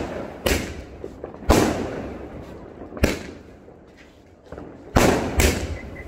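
A 450-shot multi-shot firework cake firing: five sharp bangs at uneven spacing, each ringing off. The last two come close together near the end.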